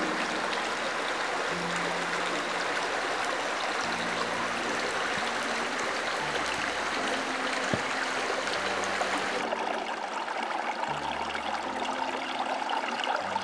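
Shallow stream running over stones, a steady rushing and babbling of water. About nine and a half seconds in it becomes softer and less hissy, as a calmer stretch of the stream takes over.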